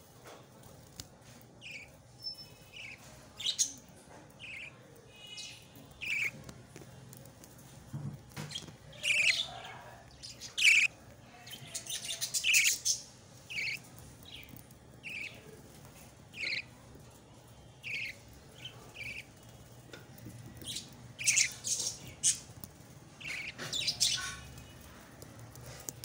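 Budgie chick chirping: many short, high chirps in irregular runs, loudest in the middle and near the end.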